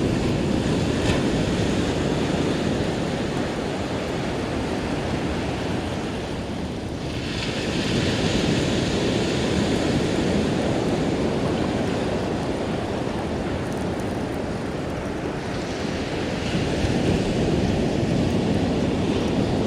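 Ocean surf washing up a beach, with wind on the microphone. The hiss of the wash swells twice, about eight and sixteen seconds in.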